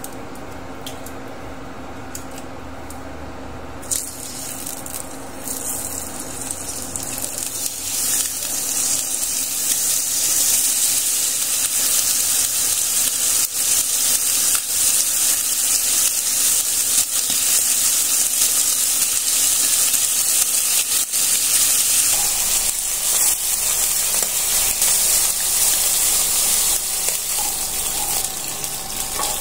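Chicken pieces sizzling as they fry in hot oil in a ceramic-coated pan on an induction cooktop. The sizzle starts suddenly about four seconds in, after a steady low hum, builds over the next few seconds and then holds as a loud, dense crackling hiss.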